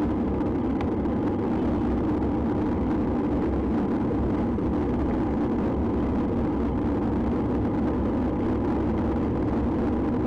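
Steady wind and travel noise picked up by a small action camera's built-in microphone while it rides on a moving vehicle along a road.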